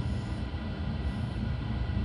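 Steady rolling rumble of a moving train heard inside an SNCB I10 passenger coach: wheels on rail and body noise, strongest at the low end, with a faint steady high tone over it.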